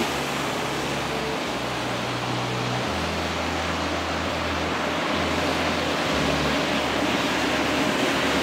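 Steady rushing noise of an outdoor city street, with a low hum from traffic that shifts in pitch a few times.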